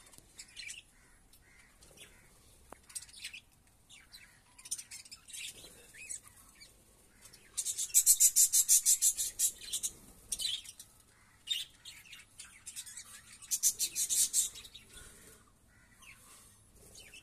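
A flock of budgerigars chirping, with scattered single chirps and two spells of fast, shrill chattering: one about halfway through and another a few seconds later.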